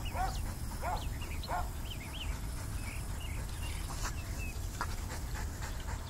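A retriever whining: short high calls that rise and fall, repeated several times, over a steady low rumble.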